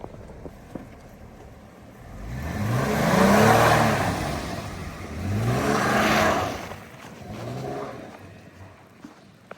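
Jeep engine revved hard three times, the pitch rising and falling each time, the first two loud and the third weaker, with a rushing noise that swells with each rev.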